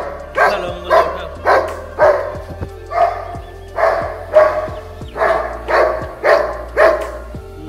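A dog barking over and over at an even pace, about two barks a second.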